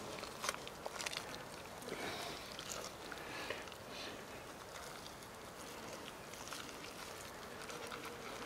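Faint handling sounds of a knife cutting an elk tenderloin free from the carcass: scattered small clicks and soft wet scrapes of hands and blade on meat.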